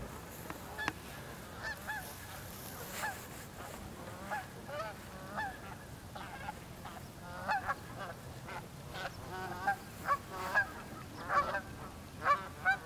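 A flock of cackling geese calling: short, high honks, scattered at first, then coming thicker and louder from about halfway through as several birds call at once.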